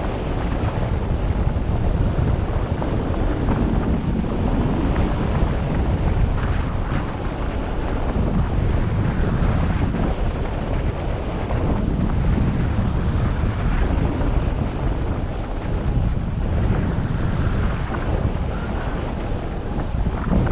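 Wind rushing over the microphone of a camera mounted on a hang glider in soaring flight: a loud, steady rumble of airflow, heaviest in the low end, swelling and easing every few seconds.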